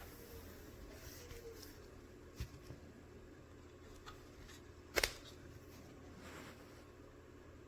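Quiet handling noise with a faint click about two and a half seconds in and a sharp double click about five seconds in.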